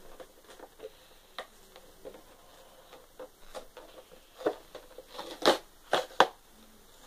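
Plastic and cardboard amiibo packaging being torn and pried open by hand: scattered crinkles and clicks, sparse at first, with a louder run of crackles near the end.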